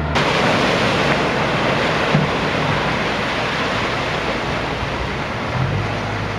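Waves breaking on the shore with wind rushing over the microphone, a steady loud rush of noise. A low engine hum comes in near the end.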